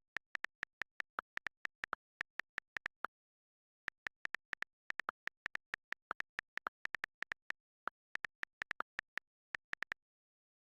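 Virtual keyboard key-press clicks from typing on a phone: short, sharp ticks in an uneven typing rhythm, a few per second, some slightly higher-pitched than others. There is a pause of about a second around three seconds in, and the clicks stop shortly before the end.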